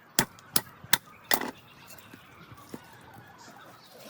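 Four sharp chopping blows in quick succession, about a third of a second apart: a blade striking into a pig carcass to break the bones and meat into pieces.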